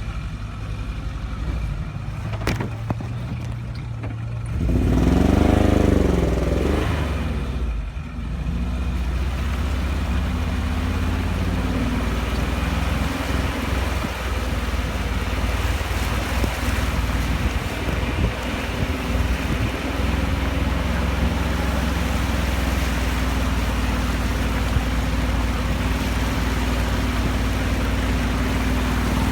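Off-road vehicle's engine running, revving up and back down once about five seconds in, then running steadily.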